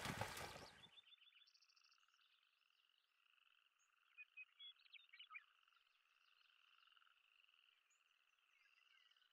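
Splashing water from a swimmer that cuts off abruptly about a second in, leaving a faint, steady chorus of frogs calling, with a few short, louder calls near the middle.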